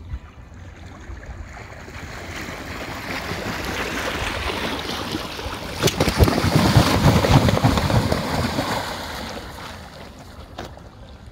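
A gust of wind swelling over several seconds and dying away, buffeting the microphone with low rumbling at its peak.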